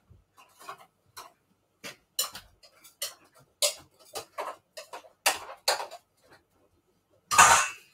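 Stuck blender jug lid being twisted and worked loose by hand: a string of irregular clicks and knocks, with a louder burst of noise lasting about half a second near the end.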